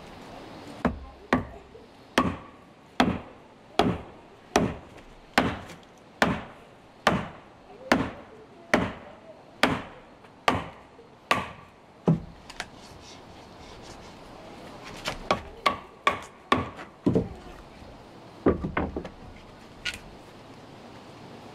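Wooden club knocking on the back of an axe head that is wedged in a log, driving it down to split the wood: a steady run of about fifteen sharp wooden knocks, a little under a second apart. After a lull, a few more scattered knocks of wood on wood.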